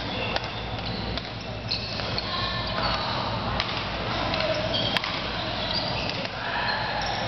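Badminton racket strikes on a shuttlecock: several short sharp clicks, one especially crisp about five seconds in, with brief shoe squeaks on the court floor and steady background noise of the hall.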